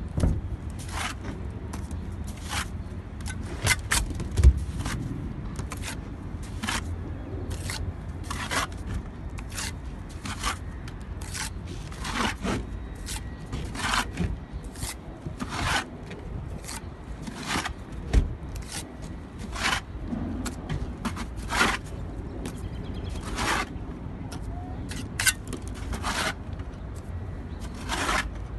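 Steel mason's trowel scraping and spreading mortar on concrete blocks: many short scraping strokes at an uneven pace, roughly one a second, over a steady low rumble.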